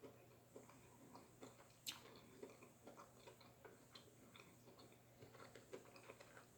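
Faint, irregular clicks and smacks of someone chewing food close to the microphone, with one sharper click about two seconds in.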